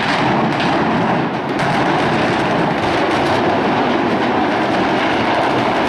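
Explosive demolition of a tower block: a few sharp cracks from the charges in the first couple of seconds, then the loud continuous rumble of the building collapsing.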